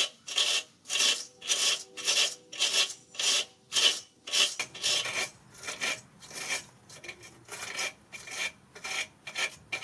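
Stiff wire brush scrubbing factory undercoating off threaded bolts in quick back-and-forth strokes, about two a second. The strokes turn lighter and quicker about halfway through.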